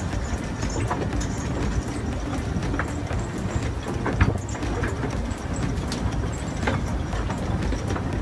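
Bucket-wheel excavator's wheel turning and its steel buckets digging into coal: a steady low rumble and scrape with irregular sharp knocks and clanks, the loudest about four seconds in.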